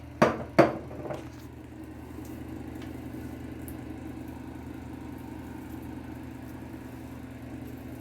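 A steady low electric hum, with two sharp knocks in the first second.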